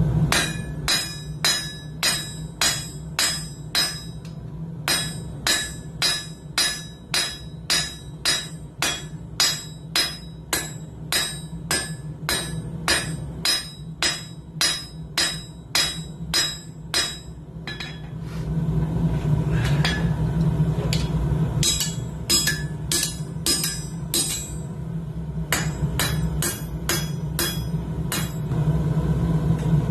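Hand hammer striking hot coil-spring steel on the edge of an anvil, forging the set down for a tong jaw. The ringing blows come about two a second for some seventeen seconds, stop for a few seconds, then come in two shorter runs. A steady low hum runs underneath.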